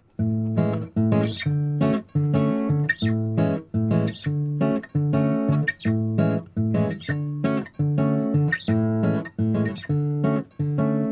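Background music: an acoustic guitar picking a repeating pattern of notes, starting suddenly after silence.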